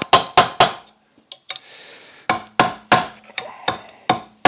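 Hammer blows on metal with a short ring after each: three quick strikes, a pause of over a second, then a run of about six strikes at roughly three a second. The hammering is knocking at a stuck fastening to break it loose.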